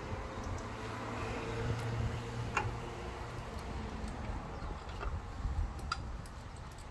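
A few scattered small clicks and taps of metal parts and tools as the espresso machine's group valve is fastened down, over a steady low hum.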